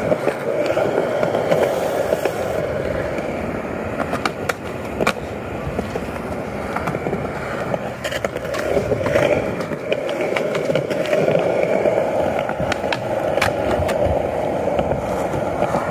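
Skateboard wheels rolling on concrete: a steady rolling rumble, with a few short sharp clacks scattered through it.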